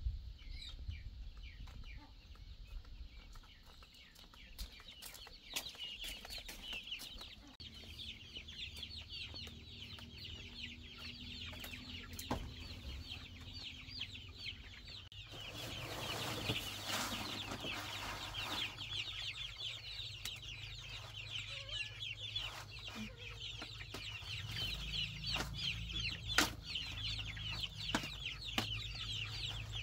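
A crate of young chicks peeping continuously in a dense chorus of short high chirps, with scattered knocks and a few seconds of rustling about halfway through as the plastic crate is handled.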